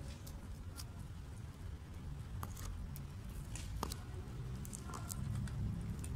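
Stray cats eating dry kibble off pavement: scattered small crunches and clicks over a steady low rumble.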